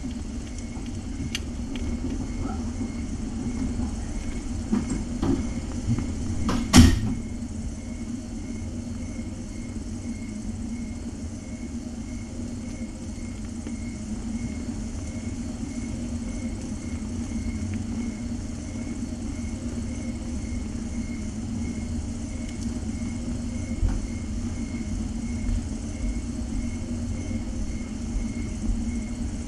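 Steady low room hum with a faint regular ticking, a few light clicks in the first seven seconds and one sharp knock about seven seconds in.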